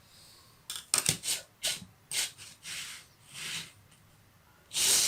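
Plastic Lego pieces being handled: a quick cluster of sharp clicks about a second in, then several soft hissing rustles, the loudest near the end.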